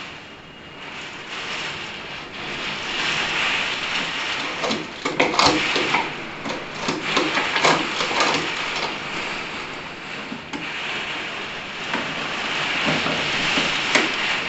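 Heavy wind-driven rain making a steady hiss, with irregular knocks and rattles, a cluster of them about halfway through and one more near the end.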